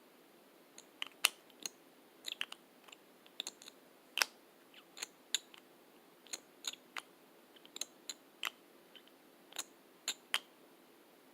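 Lipstick tubes being handled close to the microphone: an irregular run of sharp plastic clicks and taps, some in quick pairs, from the cases and caps.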